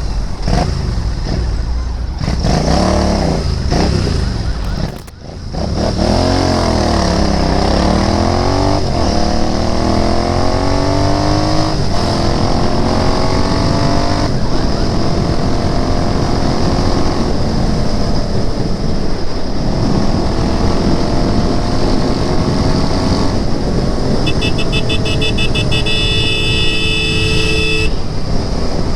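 Royal Enfield Interceptor 650's parallel-twin engine under way, its pitch rising repeatedly as it accelerates through the gears, then running steadily. The sound drops briefly about five seconds in, and a vehicle horn sounds for a few seconds near the end.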